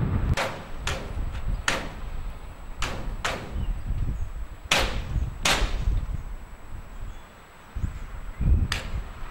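About eight sharp hammer blows, struck one at a time at uneven intervals, on the fittings of a lorry and its trailer.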